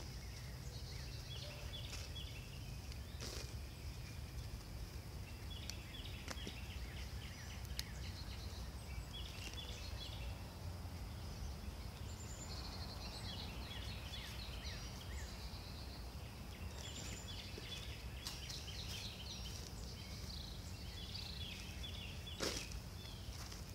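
Birds chirping in short repeated calls over a steady low outdoor rumble. Beneath them is the soft scraping and rustling of loose potting soil being dug through by gloved hands, with a few sharp clicks.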